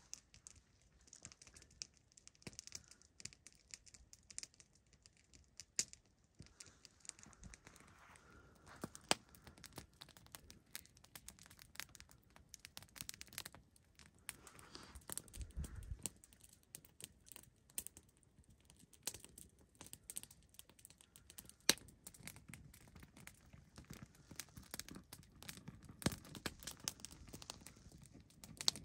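Wood campfire crackling, with irregular sharp pops over a low hiss and a dull low thump about halfway through.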